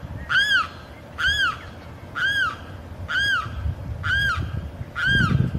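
A male limpkin gives its loud cry to attract a mate, six calls about one a second, each rising then falling in pitch. A low rumble comes in near the end.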